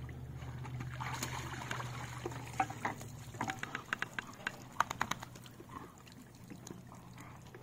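Water pouring and dripping off a wet dog as it climbs out of a lake onto stone steps, with a cluster of sharp splashes and clicks in the middle. A low steady hum fades out over the first few seconds.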